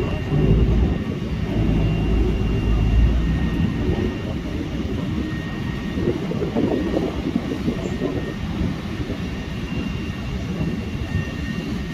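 Heavy diesel machinery running: a low engine rumble that swells about six seconds in, with a faint high whine coming and going.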